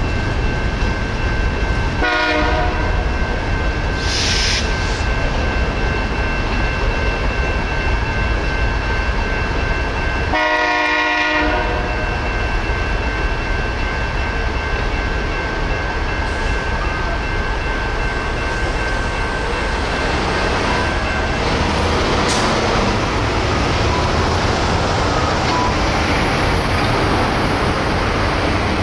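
Freight train rumbling through a grade crossing while the crossing bells ring steadily. A train horn sounds briefly about two seconds in and again for about a second around ten seconds in. The crossing bells stop about two-thirds of the way through, and road traffic noise rises.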